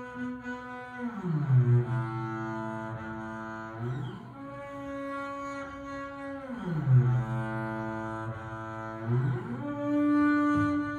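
Double bass bowed in long sustained notes, shifting back and forth between a low note and one about an octave higher, with an audible slide each time: down about a second in, up about four seconds in, down again around six and a half seconds, and up again near nine seconds.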